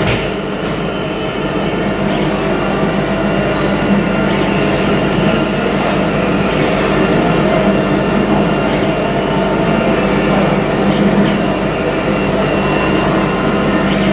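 Laser engraving machine running as it marks lettering into a metal camera housing: a steady mechanical hum and whine with several held tones.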